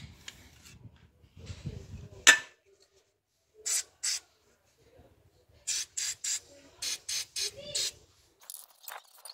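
Aerosol can of rust remover spraying in a string of short hissing bursts onto a rusted pedal pivot to free it, after a sharp click about two seconds in.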